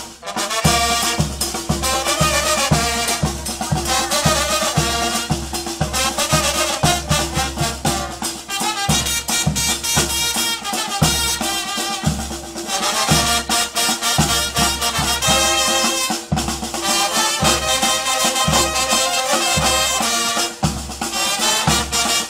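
Band music with brass and drums: brass instruments playing a melody over a steady, driving drum beat.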